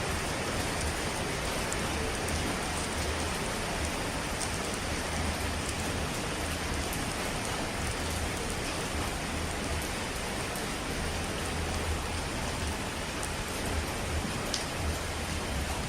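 Steady rain: an even hiss with occasional faint drop ticks and a low rumble underneath.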